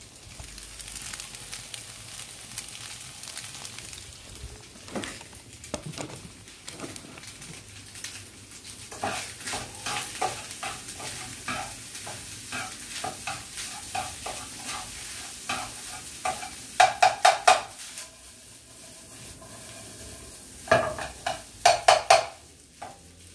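Fried rice sizzling in a frying pan over a gas flame while a spatula stirs and scrapes through it, the rice being fried a little drier. Twice, about two-thirds of the way in and near the end, a quick run of about four loud metal clanks of the spatula knocking against the pan.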